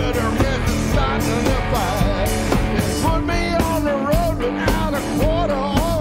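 Live rock-and-roll band of electric guitar, bass guitar and drums playing an instrumental passage, with the lead guitar bending and wavering notes over a steady bass and drum beat.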